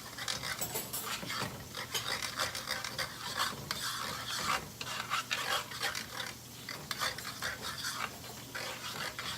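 A spoon stirring and scraping shredded chicken, hot sauce and blue cheese around a skillet in irregular strokes, with the mixture sizzling lightly over medium heat.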